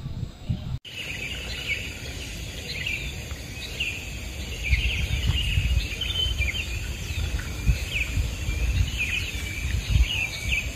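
Small birds chirping in short, repeated calls, over a steady high-pitched tone and a low rumble.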